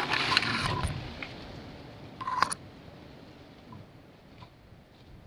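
Rustling and clicking from the handheld camera being moved among leaves, loudest in the first second, with one more short rustle about two and a half seconds in. After that it fades to a faint background hiss.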